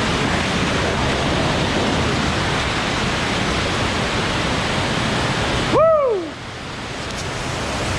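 Steady rushing of the spring-fed creek flowing through the cave. About six seconds in a person gives one short whoop, falling in pitch; the rushing dips straight after it and slowly builds back.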